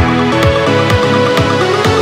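Electronic dance music with a steady kick drum about twice a second under held synth chords; a rising synth sweep starts near the end.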